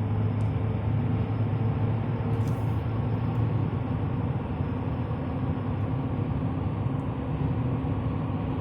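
Steady drone of a 2015 Chevy Silverado 3500's 6.6-litre Duramax V8 turbodiesel and road noise under way, heard from inside the cab. It runs evenly, with no odd noises.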